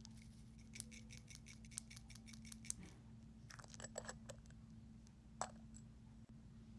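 Faint clicking and tapping of long acrylic nails on a small glass jar of face gems as it is handled: a quick run of about a dozen clicks starting about a second in, then a few scattered taps.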